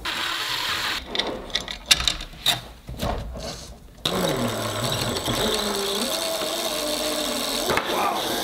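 Cordless drill boring into a 3D-printed plastic motor mount in short, uneven bursts for the first few seconds, then cutting off abruptly.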